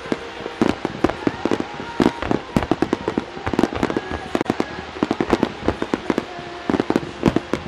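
Aerial fireworks shells bursting in a rapid barrage, several loud booms a second.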